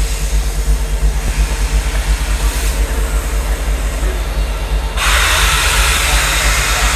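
Stopped Union Pacific train with Big Boy 4014 and its diesel helper idling: a steady low engine rumble, joined suddenly about five seconds in by a loud, continuing hiss.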